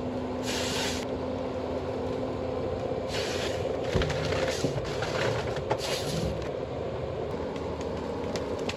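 Tree harvester machine running steadily with a low hum. Four or five short hissy bursts come over it as the cutting head works the trunk.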